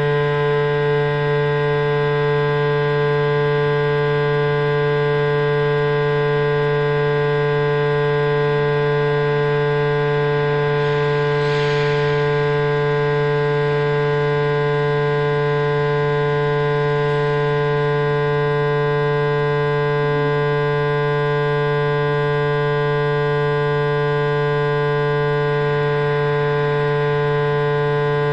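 Steady, unbroken electronic hum with many overtones, the drone of a gallery sound installation filling the room.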